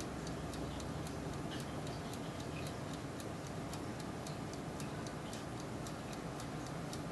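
Turbo convection oven running with a steady rush of fan-driven hot air, over an even, fast ticking of about four ticks a second.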